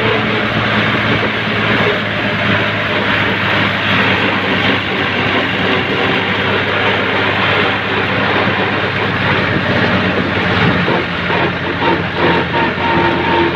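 Tractor's diesel engine running steadily at road speed, heard from on board close to the exhaust stack: a loud, even drone with engine clatter.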